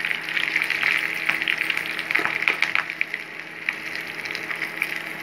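Whole spices, dry red and green chillies and bay leaves sizzling and crackling in hot mustard oil in a small saucepan, stirred with a spoon.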